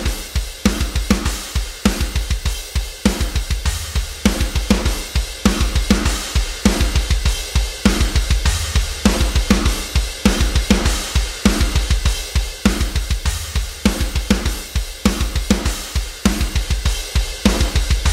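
Looped playback of a recorded metal drum kit: rapid bass drum strokes, a steady snare beat and cymbals. A parallel send through Cubase's Raiser compressor is being faded in on the whole kit.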